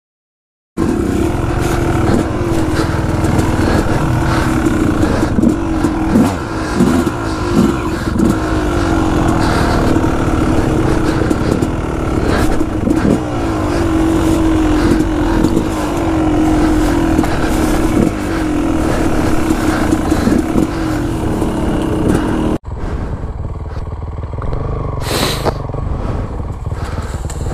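Yamaha YZ250F dirt bike's four-stroke single engine running under way on a rough trail, heard close from the bike, its revs rising and falling as the rider works the throttle. About twenty-two seconds in it cuts to a quieter, more distant engine of a bike climbing a hill.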